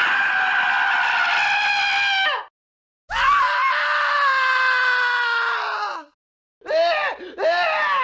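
Scream sound effects: two long, high screams of about two and a half and three seconds, each dropping in pitch as it ends, with a brief silence between them, then a run of short screams near the end.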